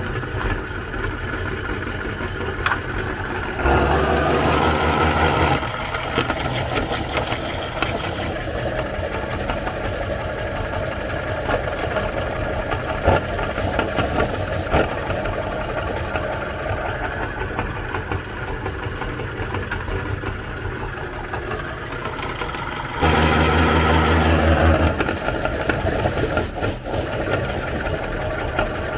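Electric meat grinder's motor running steadily as it grinds cookies, with a steady hum. It grows louder twice for about two seconds, once a few seconds in and again near the end.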